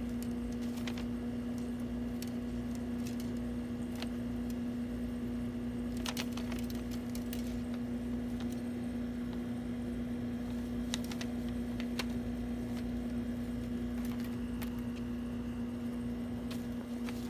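A steady low electrical hum, with a few light clicks and taps scattered through it.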